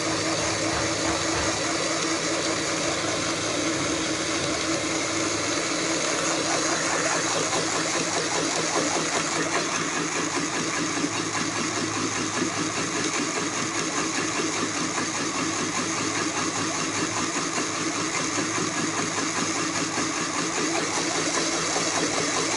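Electric blender running steadily on low speed, churning cooked plum pulp into juice, with an even motor hum.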